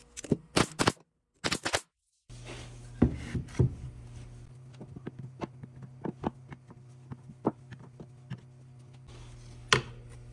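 Hitachi NT50AE2 pneumatic brad nailer firing several sharp shots into wood in quick succession. After a brief silence, a low steady hum runs under a string of light clicks and knocks of steel chisels being set onto a magnetic chisel holder, with one louder knock near the end.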